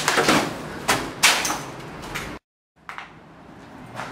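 A door being banged and rattled, with several sharp knocks in the first second and a half, then a brief cut to dead silence and fainter knocks after it.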